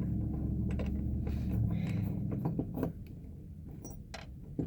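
Small metallic clicks and taps as a mortise lock cylinder and its parts are handled and worked apart for a rekey, over a low steady hum that drops away about three seconds in.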